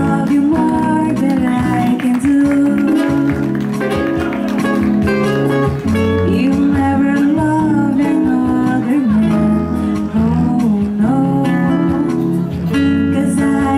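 Band music with a guitar to the fore over a bass line, playing on without a break.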